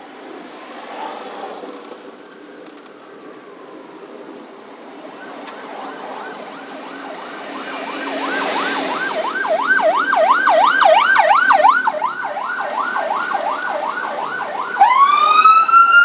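Escort vehicle's electronic siren sounding a fast yelp, about four to five rises a second, that builds up in loudness. About fifteen seconds in it switches to a slow rising wail. Two short high chirps come a few seconds before the yelp starts.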